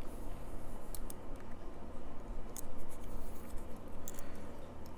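Metal lever pick scraping and clicking against the levers inside an Ingersoll CS ten-lever lock held under tension, with a handful of short sharp clicks at uneven intervals.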